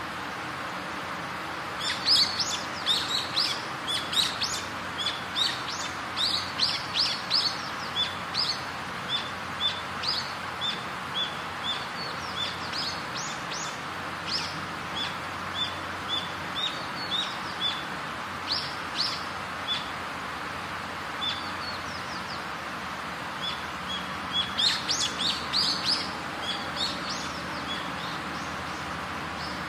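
Birds chirping: runs of quick, sharp chirps, thickest for several seconds near the start and again briefly near the end, over a steady background hiss.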